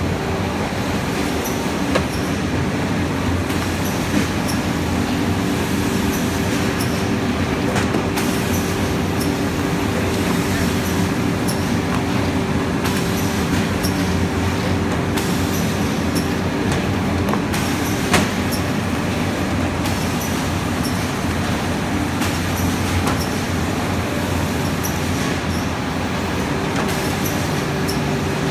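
Book-sewing machines running: a steady mechanical din with a constant hum underneath. A sharp clack stands out about 2 seconds in and a louder one a little past the middle.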